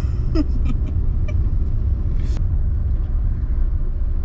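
Steady low rumble of a car's engine and road noise heard from inside the moving cabin, with a brief vocal sound about half a second in and a single sharp click a little over two seconds in.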